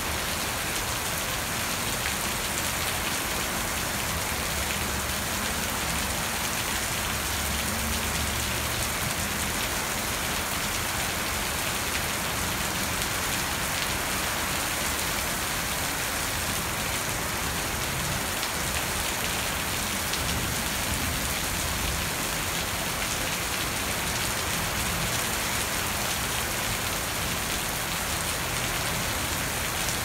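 Steady rain falling on a garden's broad-leaved plants, lawn and swimming pool, an even hiss of many drops with no let-up.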